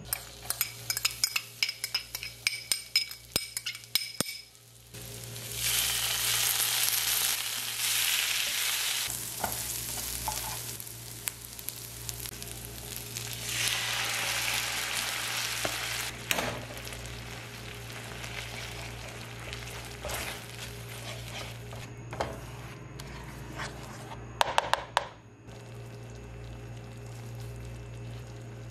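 Chopped garlic, chilli and curry leaves frying in hot oil in a nonstick pan, with a quick run of ticks and spatters at first. There are two loud spells of sizzling, the second as cooking cream is poured in. The pan then settles to a quieter steady simmer, with a few clinks of a spoon against the pan near the end.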